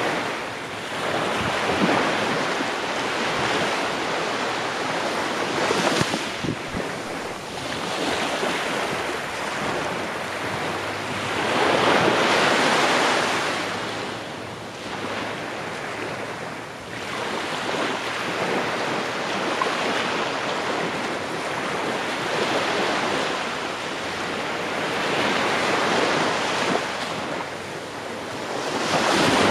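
Small waves breaking and washing up a sandy beach, then drawing back, the surf swelling and fading every few seconds. Gusts of wind rumble on the microphone.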